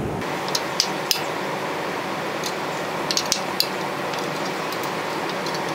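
Light metallic clicks and clinks of a spoke wrench on the steel spokes and nipples of a bicycle rear wheel being trued, irregular and a few close together, over a steady hiss.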